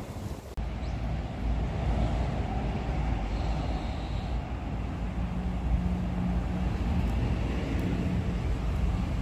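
Wind buffeting a phone's microphone: a steady low rumble that steps up about half a second in.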